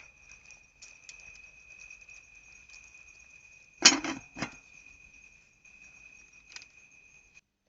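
Night insects, cricket-like, keeping up a steady high trill that cuts off suddenly near the end. About four seconds in, a short loud sound breaks in twice.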